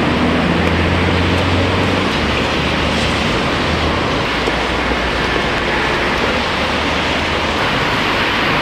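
Steady noise of heavy city road traffic on a wet, slushy multi-lane road, with tyres hissing and a low engine drone that is strongest in the first couple of seconds and then eases.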